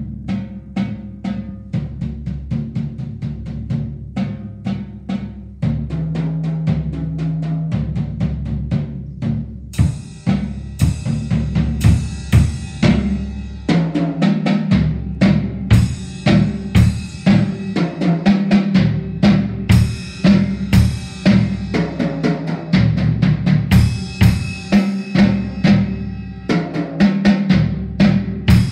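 A Yamaha acoustic drum kit being played: snare, bass drum and tom strokes in a steady groove, quieter for the first ten seconds or so, then louder with cymbal crashes about once a second.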